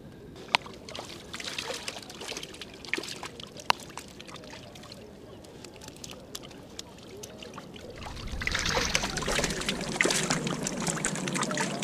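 Water splashing and running off a keepnet as the netted fish are let back into the river. A few sharp clicks come early on, and the splashing grows much louder about eight seconds in.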